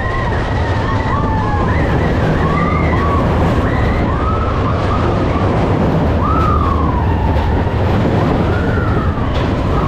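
Mine-train roller coaster cars running along the track with a steady low rumble and rush of air. Over it come repeated high squeals that rise and fall.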